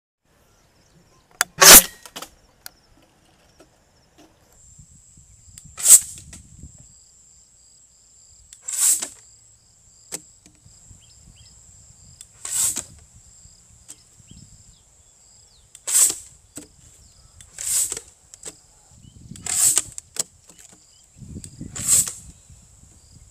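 Homemade PVC-pipe bottle rocket launcher firing again and again: isopropyl alcohol vapour lit inside the pipe goes off in a sharp pop that shoots out a plastic bottle. Eight shots a few seconds apart, the first the loudest, over a steady high insect trill.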